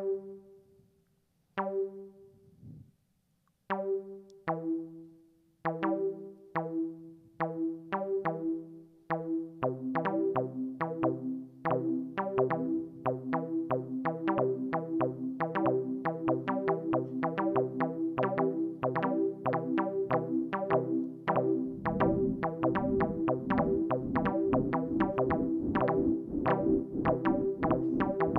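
Live electronic music from a custom image-driven synthesizer instrument: short plucked synth notes, sparse at first, building into overlapping repeating patterns about ten seconds in, with low beats joining about three quarters of the way through.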